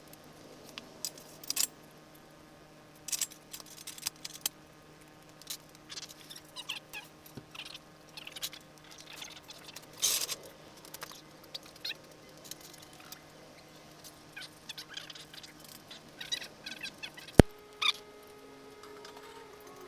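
Irregular clicks, clinks and knocks of tools and metal parts being handled during assembly of a hydraulic press, over a steady low hum. There is one sharp click near the end.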